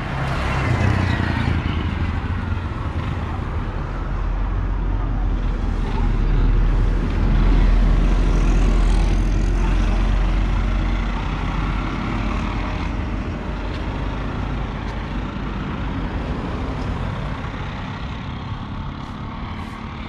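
Road traffic passing close by on a two-lane road: a car goes past near the start with a falling pitch, then a heavy low rumble of a passing truck and other vehicles swells to its loudest about halfway through and slowly fades.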